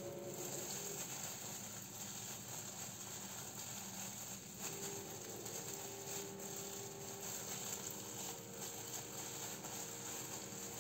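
Faint rustling and soft pats of plastic-gloved hands spreading and pressing sushi rice over nori on a bamboo rolling mat, over a steady room hiss and a faint steady hum.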